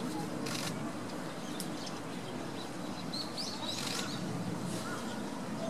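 Small birds chirping a few times, short high calls mostly three to four seconds in, over a steady outdoor background murmur.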